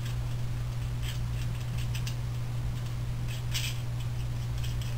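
A few light, irregular metal clicks as a nut and washer are spun by hand onto a steel rod end through a printed plastic vertex, the clearest about three and a half seconds in, over a steady low hum.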